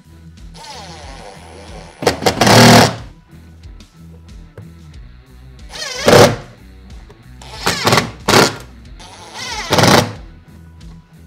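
A cordless drill driving screws into a plywood wall panel in about four short runs, the motor whining up each time. Background music plays throughout.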